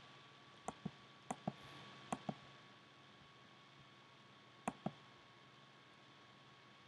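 Faint clicks of a computer pointer button: three quick press-and-release pairs in the first two and a half seconds and one more pair near five seconds in, over a faint steady hum.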